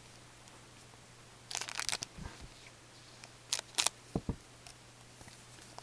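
2012 Parkhurst Champions hockey cards handled in gloved hands: a brief rustle of card stock sliding together about a second and a half in, then a couple of sharp snaps and soft knocks as the cards are flicked through.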